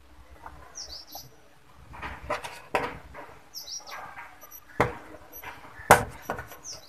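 Sharp knocks and clicks of a screwdriver and handling on the sheet-metal back of an LED TV panel, the loudest two near the end. Three short high descending chirps come in between.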